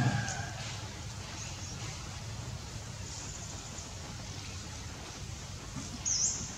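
Steady outdoor background noise with a low rumble, with a low thump at the start and one short, high chirp that dips and rises in pitch about six seconds in.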